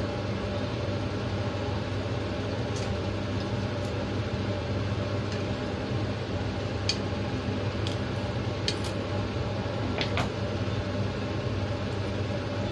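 Steady low machine hum, with a scattering of sharp clicks as kitchen shears snip through raw chicken wings being deboned.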